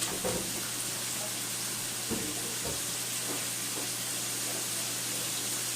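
Stir-fry ingredients, shrimp among them, frying in oil in a pan: a steady sizzle, with a couple of faint knocks about two and two and a half seconds in.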